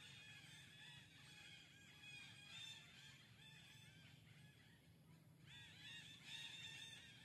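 Faint chorus of many overlapping high chirping calls, thinning briefly about five seconds in and then coming back stronger.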